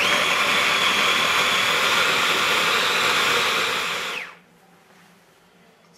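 Electric hand blender's motor driving the blade of its chopper-bowl attachment, coarsely chopping black olives, capers and anchovies in olive oil. It starts suddenly, runs steadily with a high whine for about four seconds, then its pitch falls as it winds down and stops.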